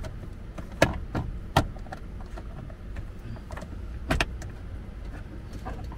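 Plastic trim panel around a Honda City's shifter being pried off, its clips clicking and snapping: three sharp clicks in the first second and a half or so, then a quick double click about four seconds in, over a low steady hum.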